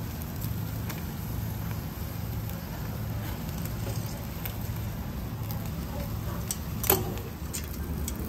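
Seafood sizzling and crackling on a grill over a steady low hum, with scattered small pops and one sharp pop about seven seconds in.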